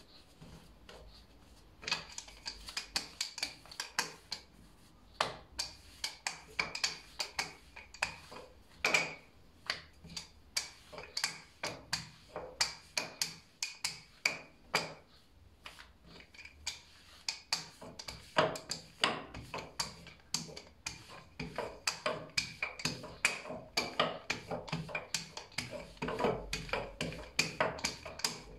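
Wooden rolling pin rolling dough out into a thin sheet on a floured granite worktop: quick repeated knocks and clicks as the pin is pushed back and forth, about two or three a second, starting about two seconds in.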